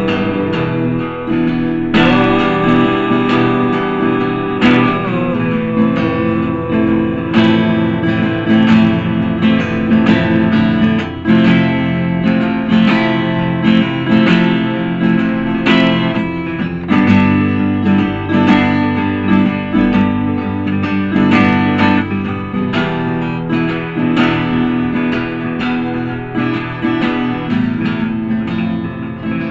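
Instrumental stretch of a song, led by strummed guitar, with no singing.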